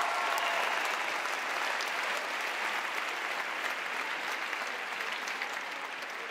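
Arena audience applauding, the clapping slowly dying down.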